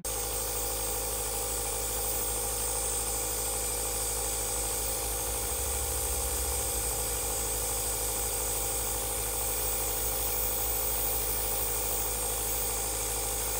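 Compressor nebulizer running, a steady motor hum with a hiss of aerosol mist, delivering an asthma treatment.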